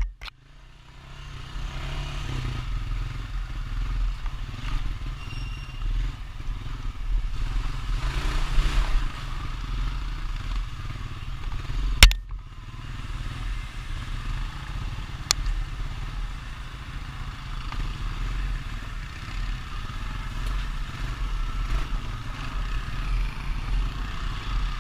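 Honda Rancher ATV's single-cylinder engine running steadily while riding along a trail, with a rough low rumble. A single sharp knock comes about halfway through.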